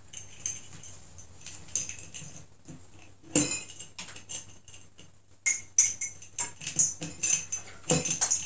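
Wire bail and metal fittings of a swing-top bottle cap clicking and clinking against a glass wine bottle as the cap is fitted by hand: scattered sharp clicks, busiest in the last few seconds.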